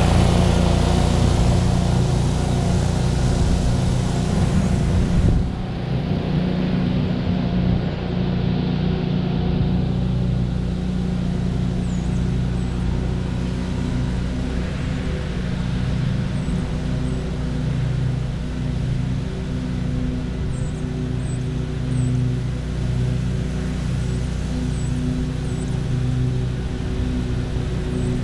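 Exmark Lazer Z zero-turn mower's engine running steadily while mowing, loud at first and dropping somewhat about five seconds in as the mower moves off, then holding steady. Faint short high chirps come in over it in the second half.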